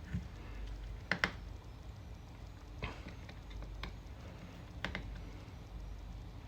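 Faint small clicks and taps from a precision screwdriver working tiny screws out of a MacBook Pro's internals, coming irregularly every second or so, some in quick pairs.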